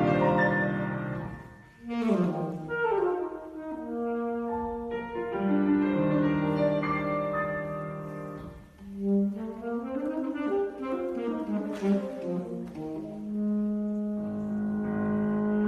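Classical alto saxophone playing with piano, moving between quick runs and sliding phrases and held notes, with a brief break about two seconds in. Near the end the music settles on a long, low held note.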